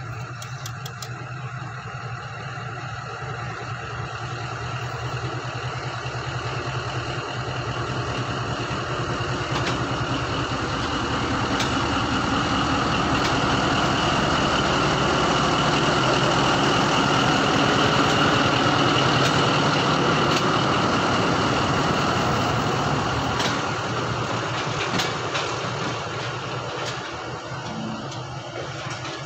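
Diesel locomotive engine idling, a steady low running sound with a high whine above it, growing louder toward the middle and easing off near the end.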